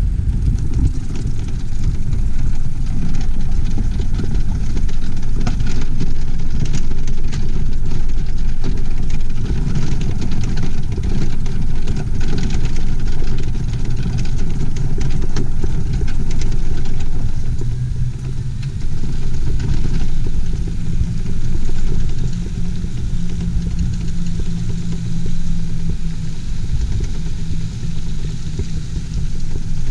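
A motor vehicle running, with a loud, continuous low rumble. A steady hum comes in about two-thirds of the way through.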